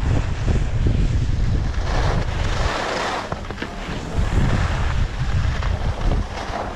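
Wind buffeting a helmet-mounted action camera's microphone while skiing downhill, mixed with the hiss of skis sliding and scraping over packed snow. The low wind rumble eases about a third of the way through, and the snow hiss swells and fades.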